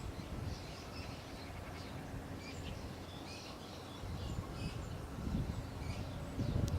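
Small birds chirping and singing in many short, high calls, over a steady low rumble.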